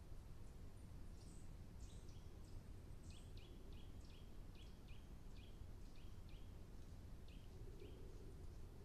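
A small bird calling over and over, faint: short high notes that each drop sharply in pitch, about two a second, starting about a second in, over a low steady hum.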